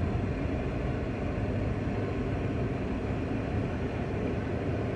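Steady low rumble of a car's engine and tyres on a paved road, heard from inside the moving car's cabin.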